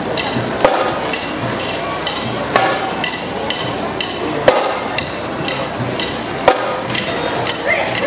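Marching-band percussion clicking out a steady walking beat: a loud, sharp click about every two seconds with softer clicks between, over a busy background hubbub.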